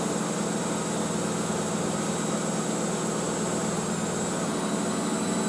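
Front-loading washing machine in a high-speed spin, around 1200 rpm, running steadily with a low drum hum and a thin high whine.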